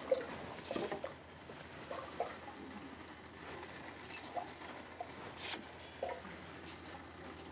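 Faint, scattered clinks and knocks of kitchen handling: a wooden ladle dipping tamarind atole from a clay pot and pouring it into a ceramic mug, while tamales are lifted out of a metal steamer pot. The sharpest knock comes right at the start, another about five and a half seconds in.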